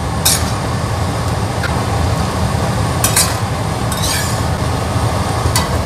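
Metal ladle scraping and clinking against a stainless steel wok while stir-frying cabbage, a few distinct scrapes over a steady low hum.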